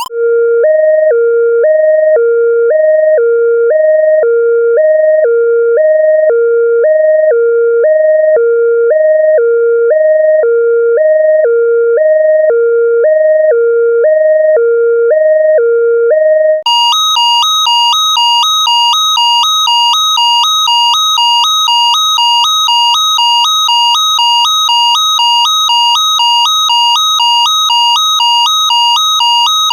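Electronic hi-lo alarm switching evenly between two pitches, each held about half a second. About 17 seconds in it cuts to a higher, harsher electronic alarm warbling faster between two tones.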